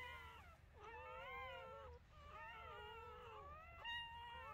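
Newborn Belgian Malinois puppies crying: several faint, high mewing squeaks with wavering pitch, overlapping one another.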